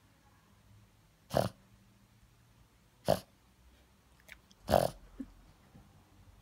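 Boston terrier snorting through its nose three times, short sharp snorts about a second and a half apart. They are the sign of a blocked nose from a cold.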